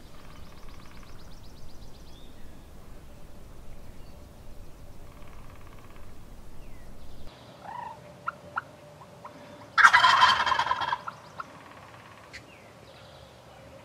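Wild turkey gobbler gobbling, with one loud gobble about ten seconds in and fainter gobbles earlier.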